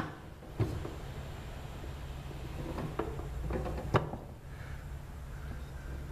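A handful of sharp knocks and clicks from parts of a bench drill press being handled and adjusted, the loudest about four seconds in, over a steady low hum.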